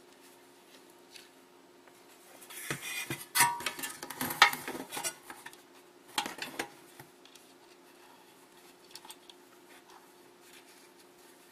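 Clattering and knocking of a lawnmower's recoil starter housing being handled and shifted while the new pull rope is threaded: a busy run of clicks and knocks lasting about three seconds, then a shorter one about six seconds in.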